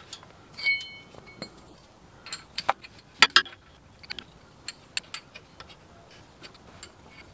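Metal clinks and scattered sharp clicks of hand tools on the drain plug of a Volkswagen Vanagon manual transmission as it is threaded back in and snugged up. One ringing clink comes about 0.7 s in, and the sharpest clicks come a little past 3 s.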